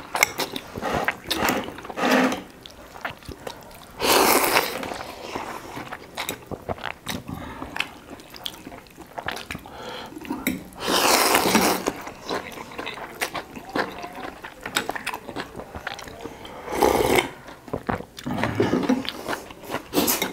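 Noodles of thukpa noodle soup slurped in three long, loud slurps spread through, with chewing and forks and spoons clicking against glass bowls between them.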